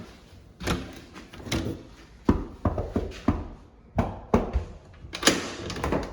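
A series of irregular knocks and thumps, the loudest about two, four and five seconds in.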